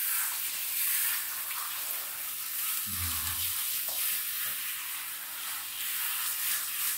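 Handheld shower head spraying water over a small dog's wet coat and into a bathtub: a steady hiss. A short low sound comes about three seconds in.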